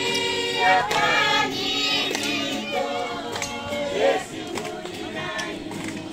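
A group of people singing together, many voices overlapping, loudest over the first two seconds and softer after that.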